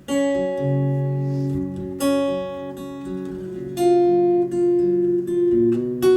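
Acoustic guitar strummed, a chord struck about every two seconds and left to ring: the intro to a song, before the singing comes in.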